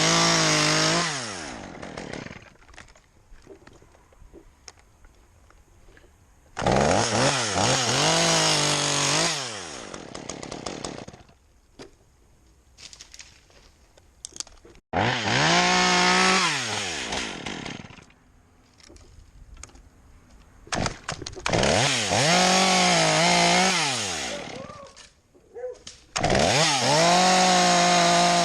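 Chainsaw revved to full throttle in five bursts of two to three seconds each, cutting dead birch, the revs dropping away after each burst to a much quieter lull.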